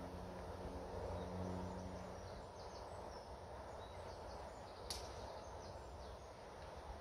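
Open-air ambience: wind rumbling on the microphone, with faint bird chirps through the middle and a faint low hum that fades about two seconds in. A single sharp click about five seconds in.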